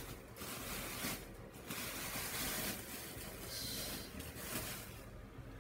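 Clear plastic wrapping rustling and crinkling in several bursts as it is pulled off a padded chair, dying away about five seconds in.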